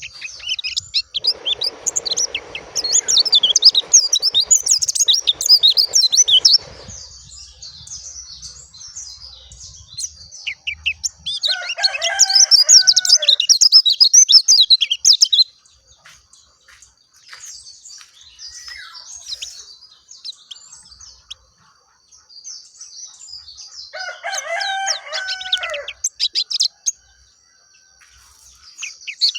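Pleci dakun white-eye singing a long, rapid, high-pitched twittering song in bursts. Twice, near the middle and near the end, a lower, harsher bird call sounds under it.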